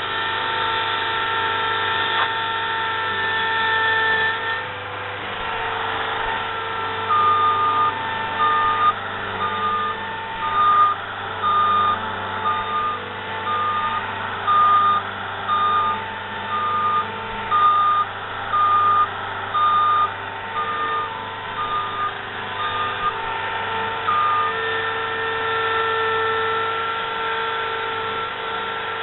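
Engine of a compact construction machine running steadily while a reversing alarm beeps at an even pace, a bit more than one beep a second. The beeping starts several seconds in and stops a few seconds before the end.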